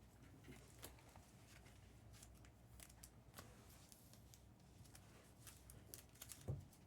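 Faint, scattered clicks and rustles of trading cards and card-pack wrappers being handled, over near-silent room tone.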